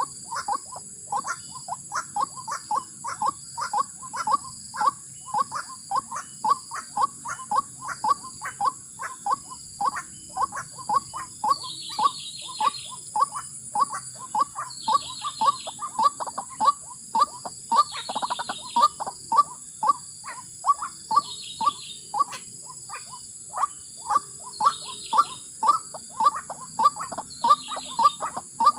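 White-breasted waterhen (ruak-ruak) calling with a fast, monotonous run of short notes, about three a second. In the second half a higher chattering call joins in every few seconds, over a steady high-pitched hiss.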